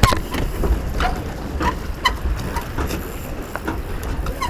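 Wind on the microphone and water moving along the hull of a small Puck-class keelboat sailing, a steady low rumble, with a few short squeaks scattered through it.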